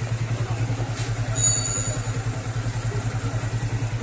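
Motorcycle engine idling with an even, quick pulsing beat. A brief high whistle-like tone sounds about a second and a half in.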